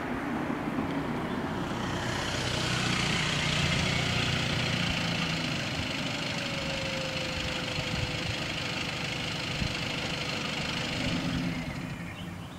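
A vehicle passing close by: a rushing noise with a low engine hum that swells about two seconds in and fades near the end, with a faint, slowly falling whine in the middle.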